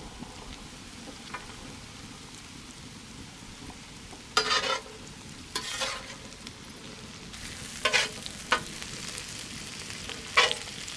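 Onion, chillies and Manila tamarind arils sizzling steadily in hot oil in a large flat pan, while a metal spatula scrapes across the pan about five times, the first stroke about four seconds in.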